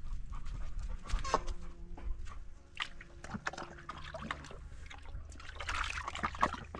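A dog lapping water from a small pool in a sandstone hollow: irregular wet slurps and small splashes.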